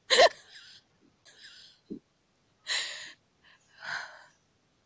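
A woman's stifled, breathy laughter: a sharp gasp at the start, then a few airy puffs of breath spread about a second apart.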